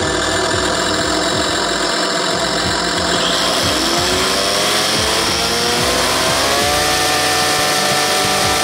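Radio-controlled model snow blower running with a steady mechanical whir; about three and a half seconds in, its motor spins up with a rising whine that levels off near seven seconds and then holds a steady pitch.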